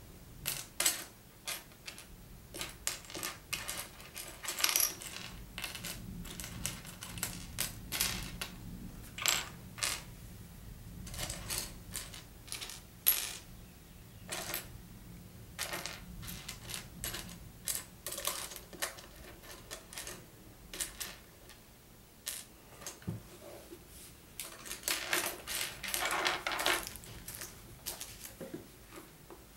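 Small plastic Lego pieces clicking and rattling as they are picked up, sorted and handled on a tabletop: irregular sharp clicks, with a busier stretch of rattling about three quarters of the way through.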